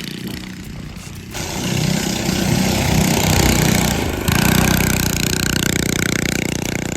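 Go-kart's small gas engine running and revving, growing louder about a second in, with a short dip midway before picking up again.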